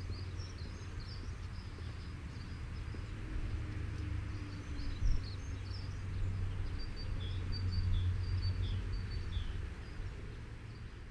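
Small birds chirping, with short high chirps throughout and a run of quick repeated notes in the second half, over a steady low rumble.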